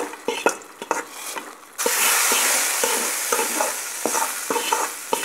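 A metal spatula scrapes and taps a wok, then about two seconds in a loud sizzle starts as the hot oil of the tempering (mustard seeds, onion and curry leaves fried in oil) hits the simmering sambar. Spatula scrapes continue over the sizzle.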